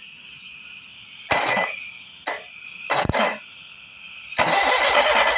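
Pliers bridged across an outboard motor's starter solenoid terminals give three short bursts of noise, then a longer, louder noise near the end. The motor does not crank, the sign that current is not passing through the solenoid and it is bad. A steady chorus of frogs or insects calls behind.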